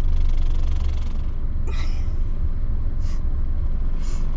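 Steady low road and engine rumble inside a moving car, with three short hisses about two, three and four seconds in.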